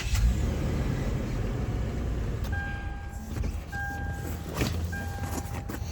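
2018 Toyota 4Runner's engine idling with a steady low rumble. About two and a half seconds in, a dashboard warning chime starts beeping, a bit under one beep a second.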